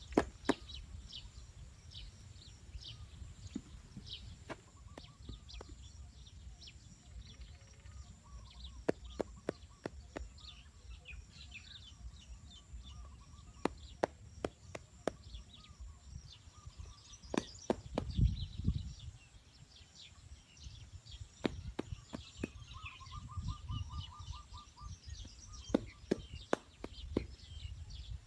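Small birds chirping in short high calls, mixed with scattered sharp taps and knocks from handwork with earth and turf, and a low rumble that swells now and then.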